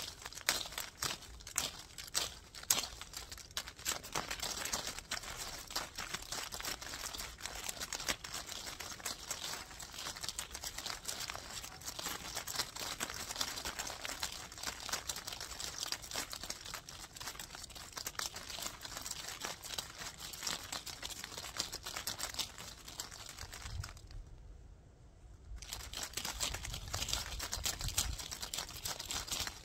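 Dense, scratchy crackling of a brush rubbed and played close against a microphone, full of sharp little clicks, stopping briefly about 24 seconds in before starting again.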